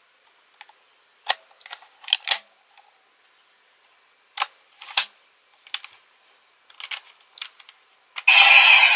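Sharp plastic clicks and snaps of the Legend Kamen Riser toy being folded and locked from its buckle form into its gun form, a dozen or so separate clicks. Near the end the toy's speaker starts a loud electronic sound effect.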